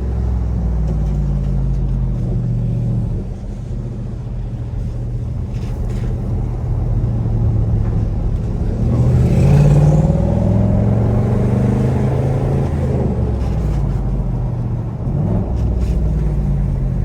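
Chevrolet Camaro SS 6.2-litre V8 running at low speed in first gear, a steady low rumble. The revs drop about three seconds in and rise briefly to a peak around ten seconds in before settling again.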